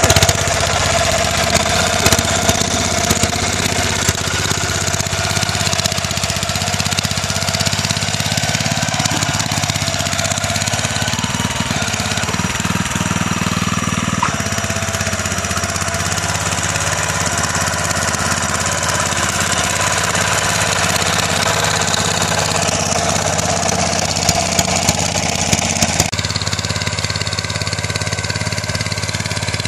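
Mini rotary tiller powered by a Robin EY20 single-cylinder four-stroke engine, running steadily under load as its tines churn dry soil.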